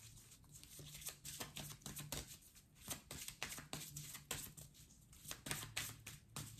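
Tarot cards being shuffled and handled by hand: a run of faint, quick, irregular clicks of card against card.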